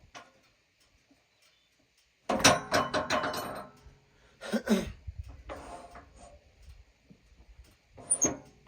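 Knocking and clattering of a maple log being turned over on the sawmill bed: a loud burst of knocks a little over two seconds in, another about four and a half seconds in, and a short one near the end.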